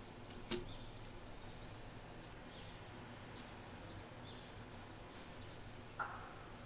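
Quiet room tone with a single sharp click about half a second in and a short knock near the end. Faint, brief high chirps, like distant birds, come and go in the background.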